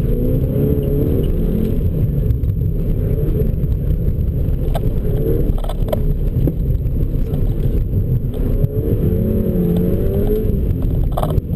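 2009 VW GTI's turbocharged four-cylinder engine revving up and falling back as the car is driven hard through an autocross course, heard from inside the cabin over a heavy low rumble of road and tyre noise, with a few short knocks.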